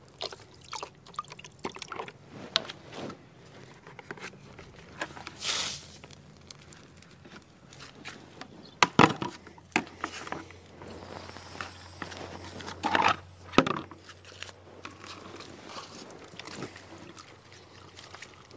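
Water splashing and trickling as a plastic bucket is emptied and refilled from a garden hose, with scattered knocks and clicks of the bucket and hose being handled. There is a brief rush of water about five seconds in, and the loudest knocks come about nine and thirteen seconds in.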